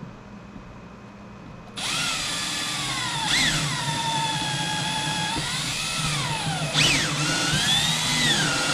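Milwaukee cordless drill running with its bit in a plywood panel. It starts about two seconds in, and its motor whine rises and sags as the bit takes up load. It stops and restarts briefly about seven seconds in.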